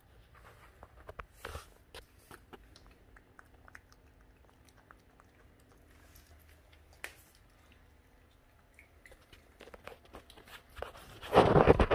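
French bulldog puppy eating dry kibble, a run of small, scattered crunches and chews. A brief, louder burst of noise comes near the end.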